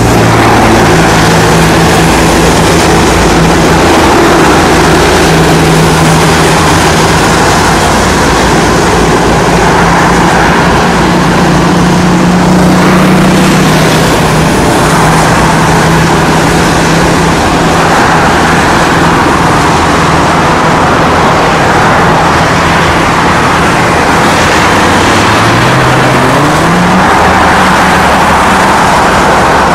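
Boeing 737 twin jet engines at takeoff thrust: a loud, steady roar as the jet begins its roll down a wet runway and moves away. A tone rises briefly near the end.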